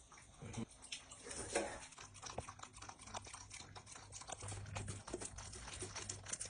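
A dog lapping up garri soaked in water, a quick irregular run of small clicks.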